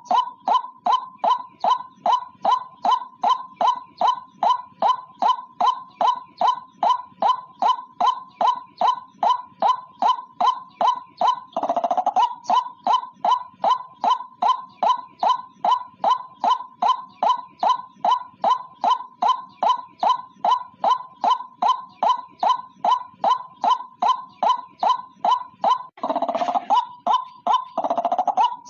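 White-breasted waterhen calling: a steady series of short notes at about three a second, twice broken by longer, harsher croaking calls, about twelve seconds in and near the end. Recorded as a lure call for trapping the bird.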